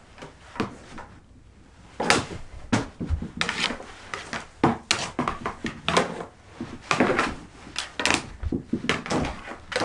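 Mini hockey sticks clacking and tapping against the ball and the hardwood floor in quick, irregular strikes during knee hockey play, starting after a short lull about two seconds in.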